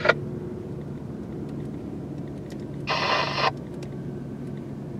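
A steady low hum of idling vehicles. About three seconds in comes a half-second burst of static from a police radio scanner between transmissions.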